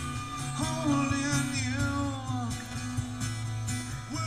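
A song with singing playing from the Dual XML8100 car stereo, from an iPhone 4 docked in it.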